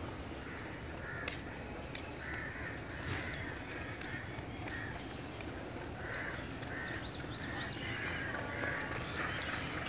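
Crows cawing again and again, many short calls through the whole stretch, over a steady low rumble.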